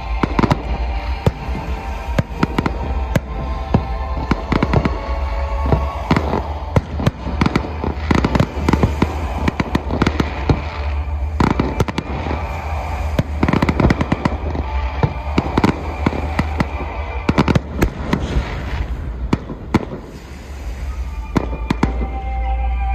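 Aerial fireworks display: rapid, overlapping bangs of shell bursts and crackles, with a brief lull near the end.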